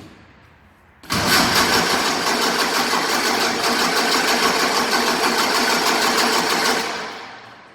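A sports car's engine being cranked by its starter motor for about six seconds without firing, starting suddenly about a second in and dying away near the end.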